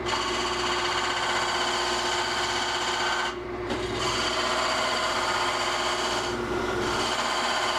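Skew chisel cutting a marking line into a cedar candlestick blank spinning on a wood lathe, a steady scraping cut over the lathe's running hum. The cut lifts off for a moment a little over three seconds in, then goes on.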